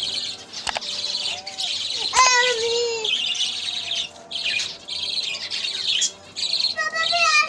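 Budgerigars chattering and chirping almost without pause in rapid bursts, with a few longer falling calls and a couple of sharp clicks.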